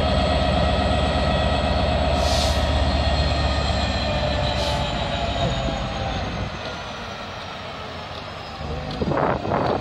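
Class 66 diesel locomotive's EMD two-stroke V12 engine working, a deep steady throb that eases off after about six seconds, with a thin high whine slowly falling in pitch. Short rough bursts of sound come near the end.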